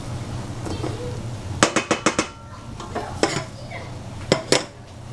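Wooden spoon stirring couscous in a stainless-steel saucepan and knocking against the pan's metal side. There is a quick run of sharp clinks about a second and a half in, another around three seconds, and two more near the end.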